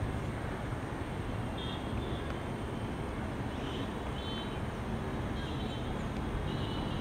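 Distant helicopter flying overhead: a steady low rotor and engine drone. A few short, faint high chirps come in at intervals.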